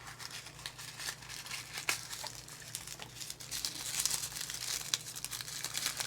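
Packaging crinkling and rustling by hand as a small doll fashion pack is unwrapped, a dense run of crackles that gets busier about two-thirds of the way through.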